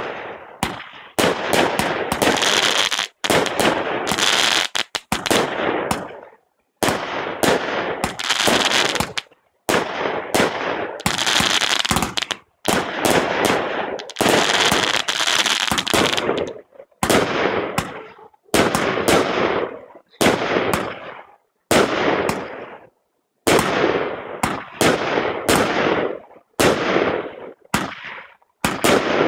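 Kompakt X-Fire II 51-shot firework cake firing shot after shot, a sharp launch or burst every second or so. Several shots are followed by a second or two of dense crackling from crackling-ball effects.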